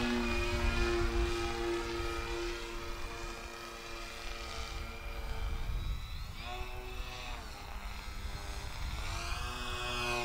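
Twin electric brushless motors (Surpass Hobby C3548 900KV) turning 12x6 propellers on a scale RC model of the Aero MB-200 bomber, giving a steady propeller hum as it flies. The sound fades toward the middle, then the pitch swells up and back down twice, around six and nine seconds in, as the model passes.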